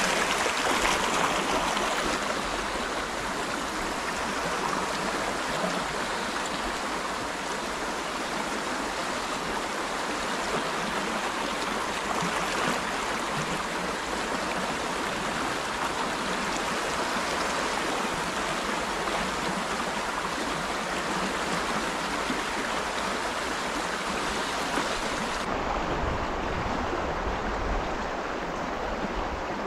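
Shallow, fast river running over stones: a steady rush of flowing water, turning a little duller with some low rumble near the end.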